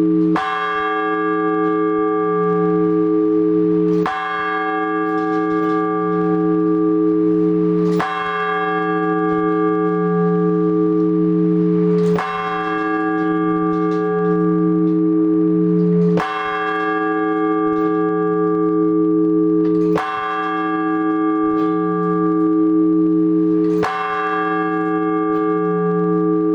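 A single large Orthodox church bell struck in slow, even strokes about every four seconds, seven in all, each stroke ringing on into the next with a slowly wavering low hum. This is the blagovest, the measured ringing of one bell that calls people to the liturgy.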